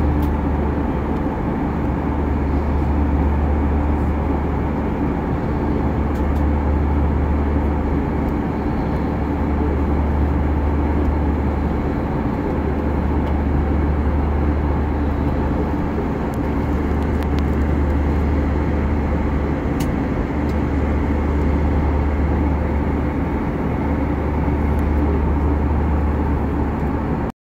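Steady drone of a jet airliner cabin in cruise, heard from a window seat beside the wing-mounted turbofan engine: a strong low hum under a rushing airflow noise. It cuts off suddenly near the end.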